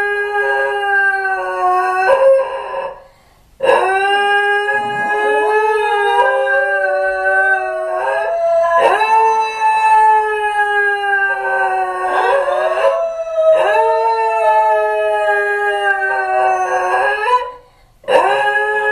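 Two dogs howling together in long, drawn-out howls, one voice holding steady while the other slides upward in pitch. The howling breaks off briefly about three seconds in and again near the end, then resumes.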